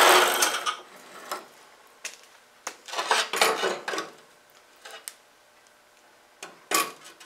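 Metal-cutting bandsaw noise dying away in the first second as the saw stops at the end of its cut through a thick steel block. Then scattered metallic clinks and knocks as the steel pieces are handled.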